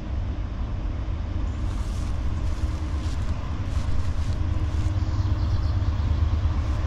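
Distant low rumble of an approaching freight train's GE Dash 9 diesel locomotives running at full throttle, growing slightly louder as the train nears.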